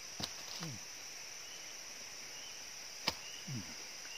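A man eating durian: two sharp mouth smacks, each followed by a short falling 'mm' of the voice. Under them runs a steady high drone of forest insects.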